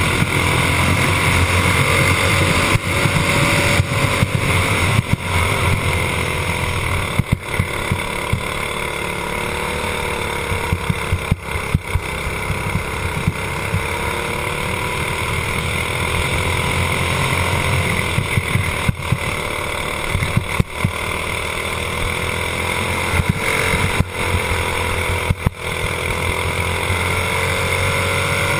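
Racing kart engine running at speed, heard from on board; its pitch rises and falls every several seconds as the throttle is opened and lifted.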